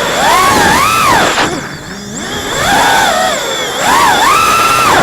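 FPV racing quadcopter's brushless motors whining, the pitch swooping up and down with the throttle, dropping away in a short lull about two seconds in and then climbing again, over a steady high tone.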